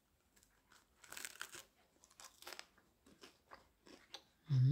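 Crunching bites into the crisp, golden crust of an air-fried calzone, held close to the microphone: a run of short, sharp crackles as the crust breaks and is chewed.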